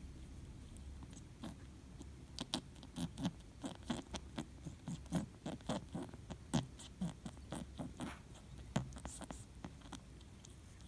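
British shorthair silver tabby kitten licking its fur while grooming after a bath: a run of short, wet licking clicks, about three or four a second, starting a second or two in and stopping near the end.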